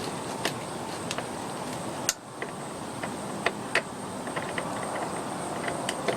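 Scattered sharp metal clicks and clinks of a wrench and parts being handled while the moped's clutch bolt is tightened. About a dozen irregular clicks sound over a steady hiss, the loudest about two seconds in.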